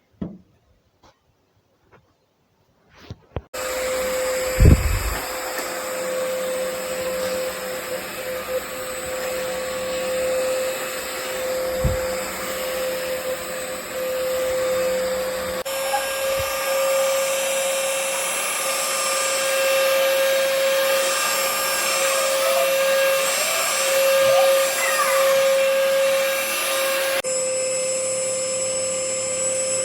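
Cordless stick vacuum with mop function, a few clicks and then switched on about three seconds in, running steadily with a high whine. Its sound shifts abruptly twice, getting brighter about halfway and changing again near the end, with a couple of low thumps early on.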